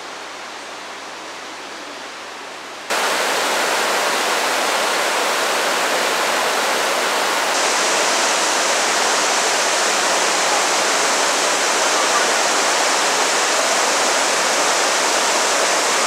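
Jōren Falls' waterfall rushing in a steady roar. It is fainter at first, jumps much louder about three seconds in, and turns brighter and hissier from about seven or eight seconds in.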